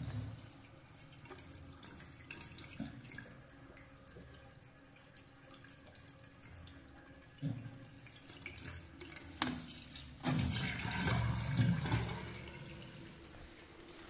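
Washing machine waste water running and splashing into a floor drain, with a louder gush lasting about two seconds near the end.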